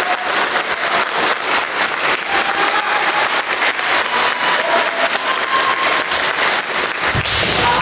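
Spectators clapping steadily and densely, over long held kiai shouts from the kendo fighters. A heavier thud near the end.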